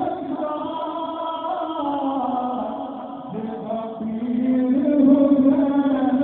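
A man's voice chanting a naat, an Urdu devotional poem in praise of the Prophet, in long held notes that bend in pitch.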